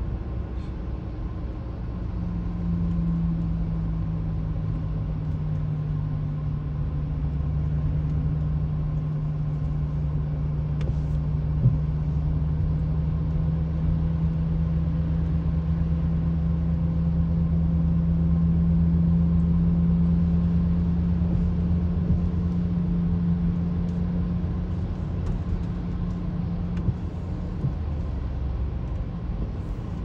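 Steady low road and engine rumble inside a moving car's cabin, with a steady hum that sets in about two seconds in and fades out near the end.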